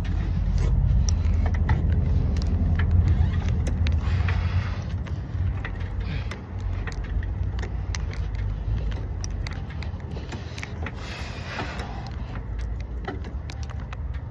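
Scattered metal clicks and knocks of a car jack being worked into place and raised under the car, over a low rumble that is loudest in the first few seconds.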